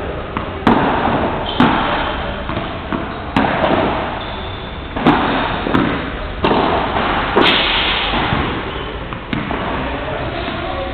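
Padel rally: the ball struck by rackets and rebounding off the court floor and glass walls, about eight sharp hits irregularly spaced roughly a second apart, each with a short ringing tail.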